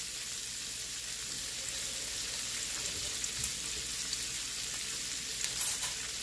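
Sliced chicken sausage frying in hot oil in a stainless steel pan: a steady sizzle with a few scattered pops, and a brief flurry of crackles near the end.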